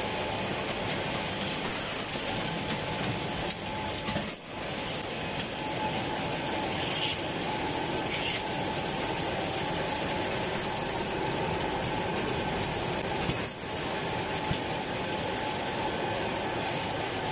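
Facial tissue bundling packing machine running: a steady mechanical hum and clatter, with a couple of brief clacks.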